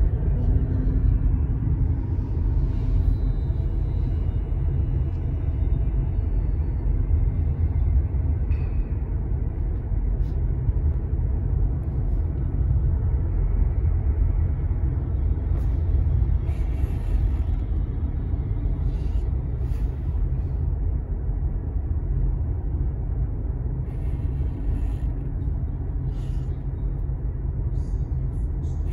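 Steady low rumble of a car's road and engine noise, heard from inside the cabin.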